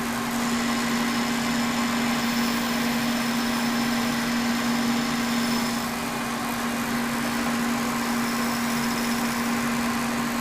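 Kearney & Trecker 2HL milling machine, set up as a lathe, running steadily with a constant hum while taking a light finishing cut of about two thousandths on a steel mounting plate.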